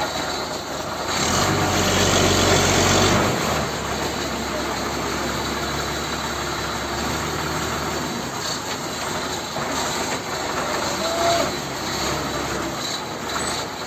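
An engine running steadily with a low hum. About a second in it grows louder, with a rush of noise, for roughly two seconds, then settles back.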